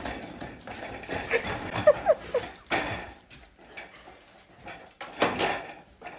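A dog sniffing and panting up close, with a few short whimpers about a second or two in, among scattered sharp clicks and knocks.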